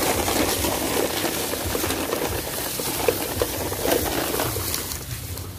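Plastic toy trucks pushed along over dry leaves, twigs and dirt: a steady rustling crackle with scattered small clicks and rattles from the loaded toys.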